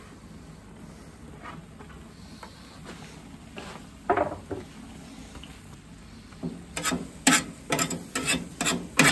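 Metal spatula striking and scraping on a gas grill's steel griddle plate while mixing meat, onions and cheese: a few knocks around the middle, then a quick run of sharp clacks, two or three a second, over the last third.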